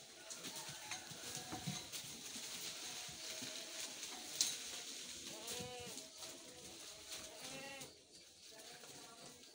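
Goats bleating twice, about halfway through and again two seconds later, each a short call. Around them runs the rustle and crackle of leafy branches as the goats feed, with a single sharp click, the loudest sound, a little before the first bleat.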